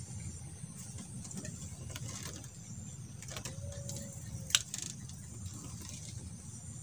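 A fishing rod being handled and lifted from its rest: a few light clicks and one sharp knock about four and a half seconds in, over a low steady rumble.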